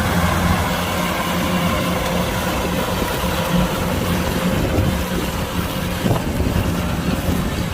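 Kubota DC-105X combine harvester's diesel engine running steadily at an even speed.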